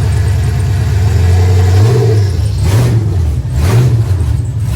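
LS1 V8 engine in a Nissan 300ZX running through freshly installed Kooks long-tube headers, shortly after a cold start. It idles, then gets about three quick throttle blips, each rising and falling in pitch.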